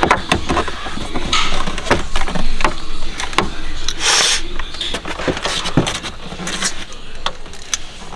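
Irregular clicks, knocks and rattles of hand tools and car interior trim being worked on, with a short hiss about four seconds in.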